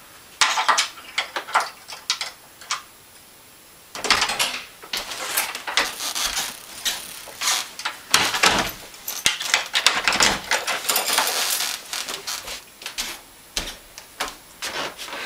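Irregular knocks, bumps and rustling as a wooden door is opened and a person moves through the doorway: a few sharp knocks at first, then after a short lull a denser run of clatter and shuffling.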